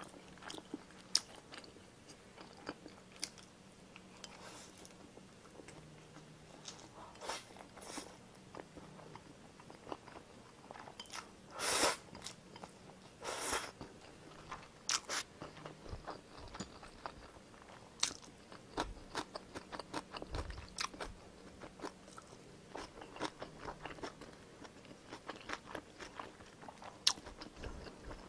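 Close-miked chewing of stir-fried instant noodles and fried egg: irregular wet mouth clicks and smacks, with two longer noisy sounds near the middle.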